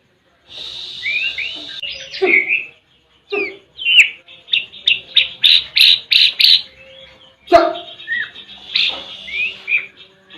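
White-rumped shama (murai batu) calling in short whistled and raspy notes, with a quick run of about eight notes in the middle. The bird is being treated for hoarseness and coughing. Two sharp clicks come partway through.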